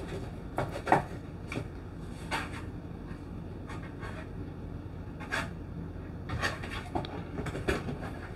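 Scattered light clicks and taps of small plastic parts being handled: a DJI lithium-ion camera battery and its plastic charging case, with a cluster of quicker clicks near the end.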